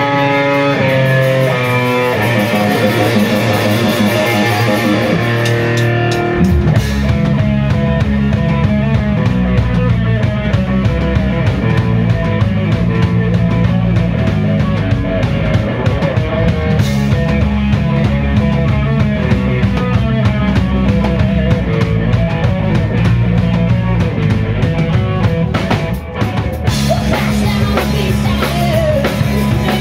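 Live rock band playing through a pub PA: a guitar line plays alone at first, then the drum kit and bass guitar come in about six seconds in. The full band drops out briefly near the end and comes back in.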